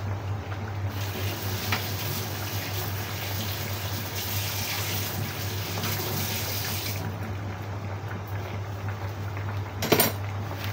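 Fish and tofu sauce simmering in an uncovered wok on a gas burner, over a steady low hum. A louder rushing water hiss comes in about a second in and stops about seven seconds in, and a single sharp knock sounds near the end.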